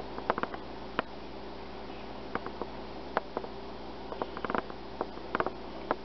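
Steady electrical hum with scattered light clicks and ticks: handling noise as the small vacuum sensor is held and turned close to the lens.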